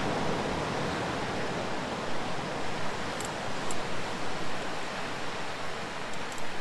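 Steady wash of ocean surf on the beach, an even rushing noise that does not let up.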